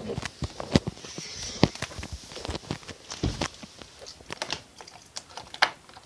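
Irregular clicks and taps as a German Shepherd puppy mouths and paws at a door stop, teeth and claws knocking on it and on the wooden floor.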